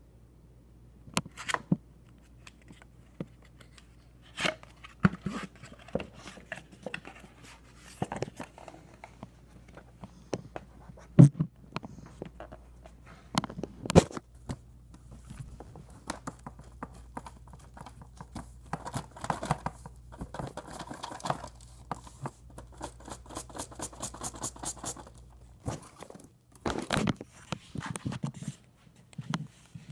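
Cardboard model-train box and its packing being handled and opened: tearing, crinkling and scraping, with scattered knocks, two of them loud a little before halfway, and a quick run of clicks later on.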